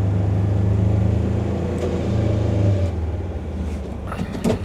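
The engine of a Polaris Ranger XP 1000 Northstar UTV, heard from inside its enclosed cab, runs steadily under load as the lowered plow pushes heavy wet snow. The engine eases off a little about three seconds in, and a short clatter comes near the end.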